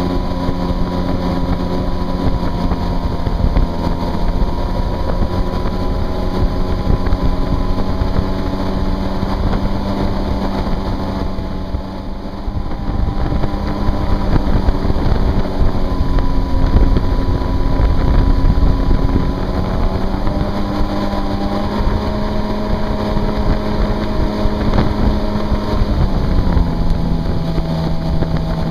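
Yamaha WaveRunner personal watercraft running at speed: a steady engine drone over the rush of water and spray from its jet wake. The engine note steps slightly lower near the end.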